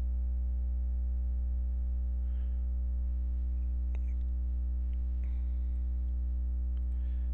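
Steady electrical hum with a stack of overtones on the microphone, with a few faint clicks of a computer mouse about four seconds in and near the end.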